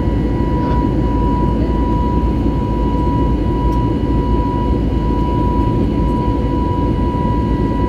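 Steady jet engine and airflow noise inside the cabin of an Airbus A320neo, heard from a window seat beside the engine: a dense, even rumble with a thin, steady whine above it.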